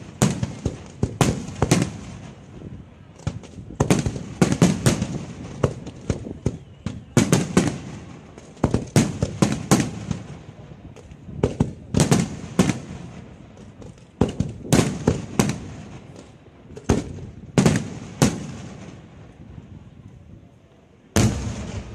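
Aerial firework shells bursting overhead in a rapid barrage of sharp bangs, each trailing off in an echo. A brief lull comes near the end, followed by one more loud bang.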